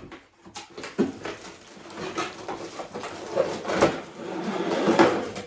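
A cardboard box and its packaging being opened and handled: irregular rustling and scraping with a few sharp knocks, the loudest about four and five seconds in.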